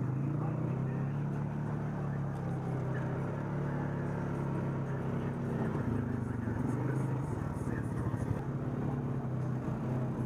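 ATV engine running at a steady, unchanging pitch while driving through shallow river water.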